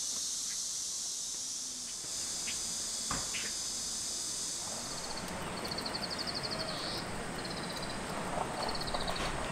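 Cicadas buzzing in a steady high drone. About five seconds in, the sound changes: a pulsing insect call comes in short repeated trains over a low rumble.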